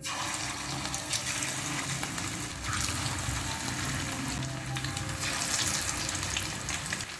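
Masala-coated rohu fish pieces sizzling and crackling in hot oil in a frying pan as they are laid in one after another. The sizzle grows a little louder a few seconds in as more pieces go into the oil.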